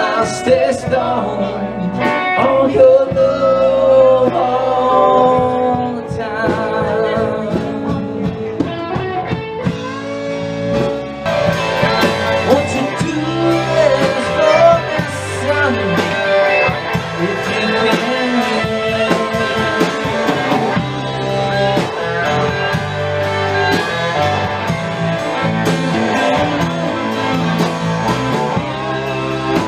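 Live band playing an instrumental break led by electric guitar, with drum kit and bass, at a slow country tempo. The sound grows fuller about eleven seconds in.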